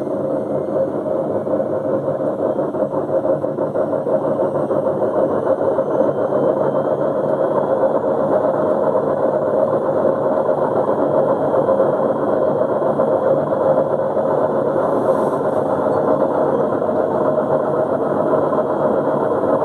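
Beko front-loading washing machine running in test mode: a steady, loud rushing hum that goes on without a break.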